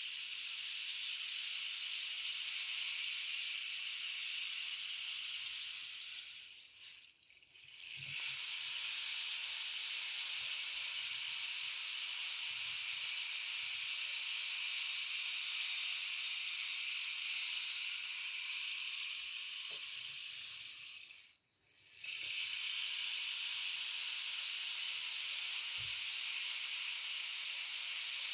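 Rain stick being tipped: a steady hiss of pebbles trickling down inside the tube. It dies away twice, about a quarter of the way in and again about three-quarters through, as the stick is turned over, then builds back up.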